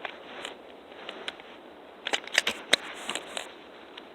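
Gun being handled and readied to fire: a quick cluster of sharp clicks and clacks about two seconds in, with a few lighter clicks before it.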